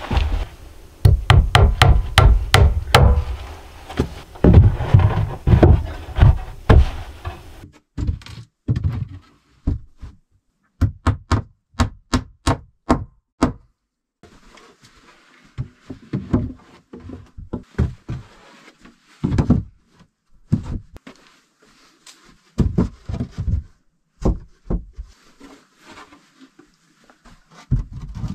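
Wooden planks knocking and thudding as they are fitted against a wall, with a run of sharp, evenly spaced hammer strikes, about three a second, midway through.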